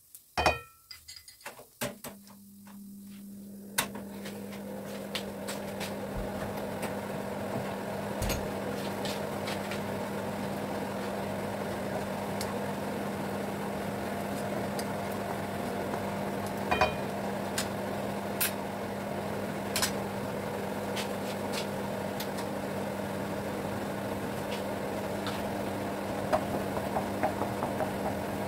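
Minced garlic frying in a little oil in a wok, the sizzle building over the first few seconds and then holding steady, with occasional taps and scrapes of a spatula against the pan. A steady low hum starts about two seconds in.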